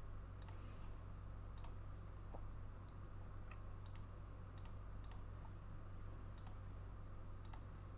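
Scattered single clicks of a computer mouse and keyboard, roughly one a second and irregularly spaced, over a steady low hum.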